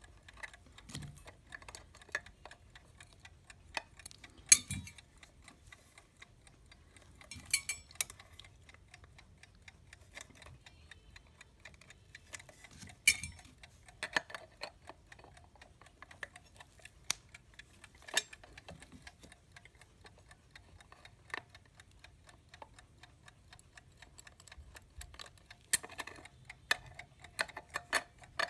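Wind-up alarm clock movement (a vintage US Time "Waterbury") ticking fast and steadily, with irregular louder clicks and knocks from the clock case and base being handled and screwed together.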